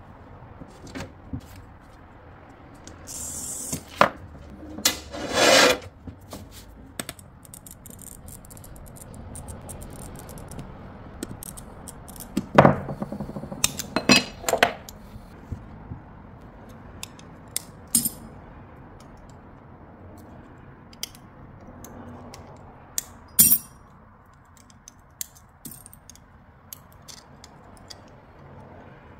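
Hand-cutting art glass: a glass cutter scoring a sheet, then glass pieces snapping apart and clinking together in a string of sharp clicks. Near the end, grozing pliers nibble chips off the edge of a piece.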